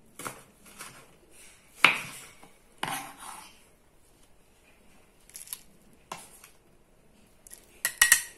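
Kitchen knife chopping red chilies on a wooden cutting board: a few irregular knocks of the blade on the wood, the loudest about two seconds in, and a quick cluster of knocks near the end.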